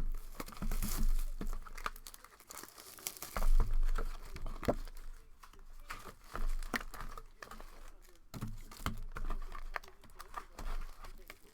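Plastic wrapping on a sealed trading-card hobby box being torn open and crinkled, with irregular crackles and sharp snaps.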